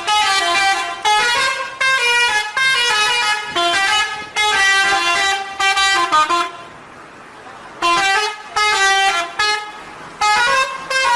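Indonesian bus 'telolet' horn, a multi-tone musical air horn playing a quick melody of short notes that step up and down. It breaks off about six and a half seconds in and starts again a little over a second later.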